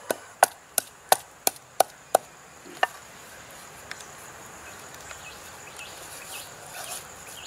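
Wooden pestle pounding in a wooden mortar: about seven sharp strikes at roughly three a second, stopping about three seconds in.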